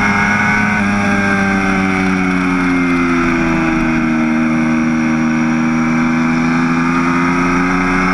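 Aprilia RSV4's V4 engine running hard in fifth gear at track speed, with wind rush over the onboard camera. The note falls gradually over the first few seconds as the throttle eases for a fast corner, then holds steady and starts to climb again near the end.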